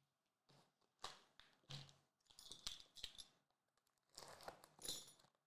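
Plastic shrink wrap on a Dragon Ball Super card game booster box crinkling and tearing as it is handled and peeled open. It comes as a run of irregular rustles and crackles starting about half a second in, sharpest near the middle and again towards the end.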